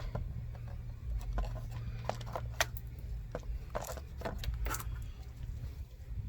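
Hands working the old Ring Video Doorbell 2 off its mount: a scatter of short scrapes and clicks over a low steady rumble.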